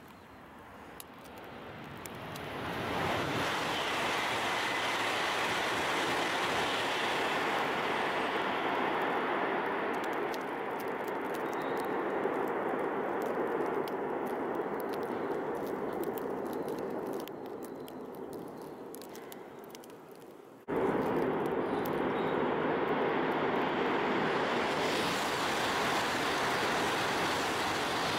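Tohoku Shinkansen high-speed trains: a loud rushing roar builds over the first few seconds and holds, fades a little about two-thirds of the way through, then cuts abruptly back to full loudness as an E5 series train speeds out past the tunnel mouth near the end.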